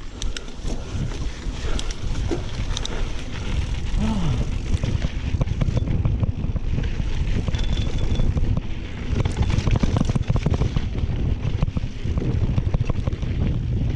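Mountain bike riding over a rough dirt trail, filmed from the bike: wind buffeting the action camera's microphone over the tyres' rumble, with many rattles and knocks from the bike over bumps.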